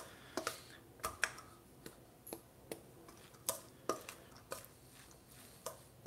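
A spoon knocking and scraping against a stainless steel mixing bowl while stirring coleslaw. It makes light, irregular clinks, about two or three a second.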